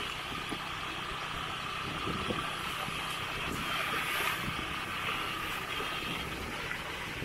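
A vehicle engine running steadily, with a steady high hiss over it.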